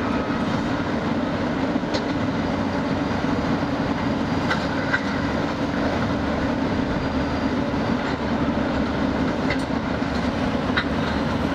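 Caterpillar 320C L tracked hydraulic excavator's diesel engine running steadily under load during demolition, with a handful of sharp clanks and knocks from the wrecked building being pulled apart.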